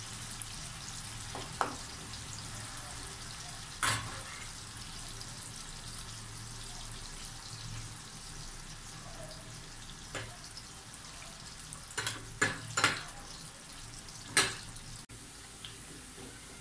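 Banana slices sizzling steadily as they fry in hot oil in a wok, with several short sharp clicks and knocks, a few of them bunched together in the last third.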